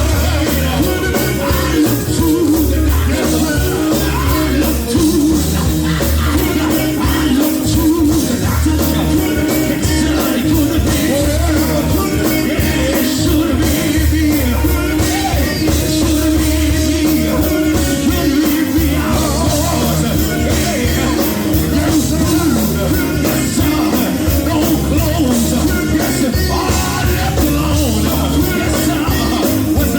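Live gospel band music, loud and steady, with voices singing over an amplified band.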